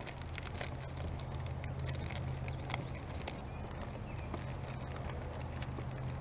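Fishing tackle being rummaged through: irregular small clicks, taps and rattles of plastic tackle boxes and lures, over a steady low hum.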